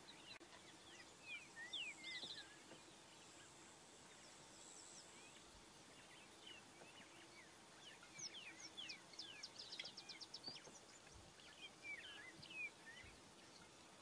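Faint high-pitched chirps and twitters in short rising and falling notes, with a couple of rapid trills, at about 2 seconds and again from about 8 seconds on. They sound over a faint steady hum.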